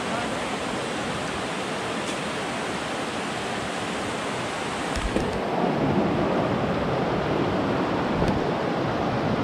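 River water rushing over rocks, a steady hiss that grows a little louder about five seconds in, with a couple of faint knocks.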